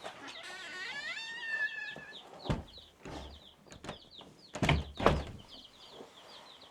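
Baby chicks peeping, a steady scatter of short, high, falling peeps, with a drawn-out wavering whine near the start and three loud knocks in the second half.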